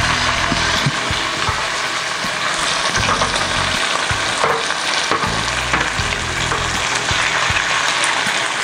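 Salmon fillets frying in olive oil in a hot pan: a steady sizzle with scattered crackles as further fillets are laid into the oil.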